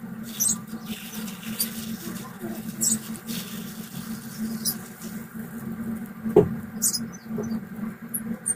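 Honeycomb being squeezed by a hand in a plastic glove to press the honey out: sticky, wet crackling and squelching of the wax comb and crinkling of the glove, coming in short spurts every second or so over a steady low hum. A single knock about six and a half seconds in.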